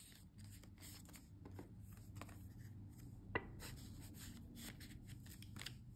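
Paper banknotes being handled and slid into a small paper cash envelope: faint, scattered rustling with one sharper click about three and a half seconds in.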